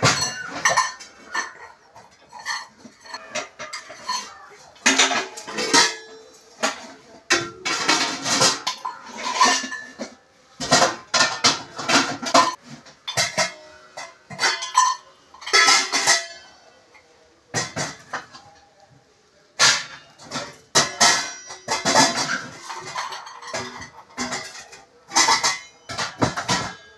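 Steel and aluminium pots, pans and lids clattering and clanking against each other as they are stacked and put away on kitchen shelves. The clanks come in irregular runs with short gaps, easing off briefly about two-thirds of the way through.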